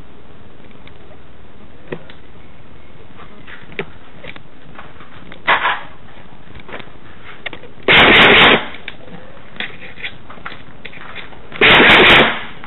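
Airsoft gun fire: a couple of faint single pops, then two loud short full-auto bursts of under a second each, about four seconds apart, over a steady hiss.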